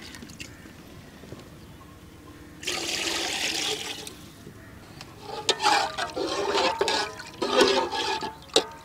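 Water poured from a bowl into the masala in an aluminium cooking pot, splashing for just over a second about three seconds in. From about five seconds, a metal slotted spatula stirs the mix, clinking and scraping against the pot.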